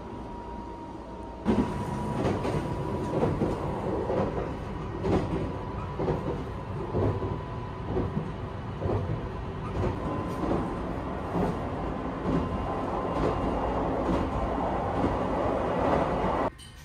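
Interior running noise of the Sunrise Express, a 285 series electric sleeper train: a steady rumble with repeated clacks from the wheels and a faint steady whine. It starts suddenly about a second and a half in and cuts off just before the end.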